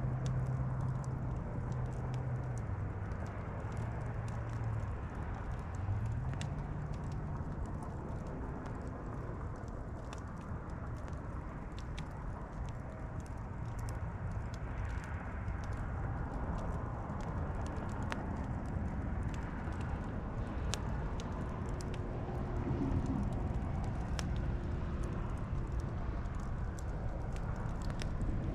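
Campfire crackling: irregular sharp pops and snaps over a steady low noise.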